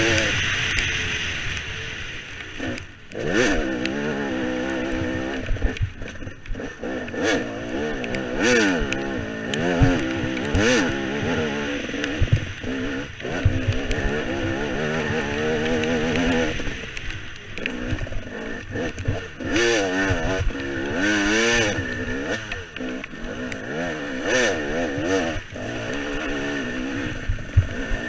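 KTM 300 two-stroke dirt bike engine revving up and down over and over as the bike is ridden hard, the pitch rising and falling every second or two. Frequent knocks and clatter come through over the engine.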